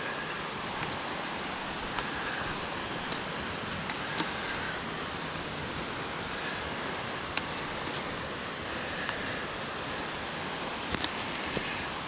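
Steady rushing of a rocky mountain stream, with a few faint scattered footsteps on the leaf-covered trail.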